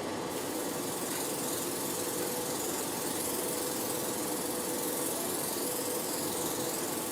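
Spray mist gun of a water dermabrasion beauty machine spraying: a steady hiss of mist starting just after the start, over the steady hum of the machine's pump.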